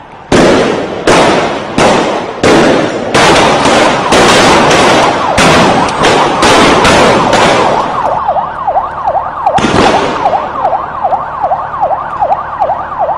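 Loud bangs in quick succession, about one or two a second, each ringing on briefly, for the first eight seconds or so. Then a vehicle siren in a fast yelp, about three rising-and-falling sweeps a second, with one more bang during it.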